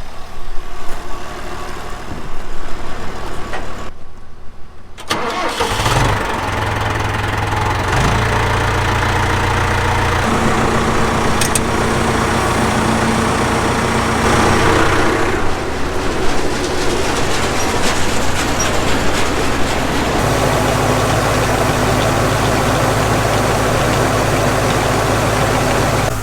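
Uneven clattering, then a tractor's diesel engine is started about five seconds in and settles into a steady run. Its drone changes about ten seconds in and again near twenty seconds, as the PTO is engaged to drive the grain auger for unloading the oat wagon.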